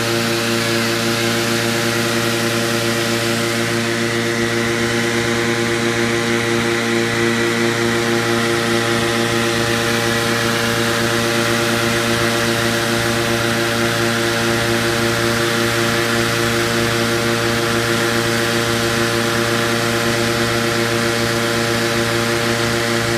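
Petrol-engined inflator fan running steadily at full speed, blowing cold air into a hot air balloon envelope during cold inflation: an even engine hum with a faint high whine.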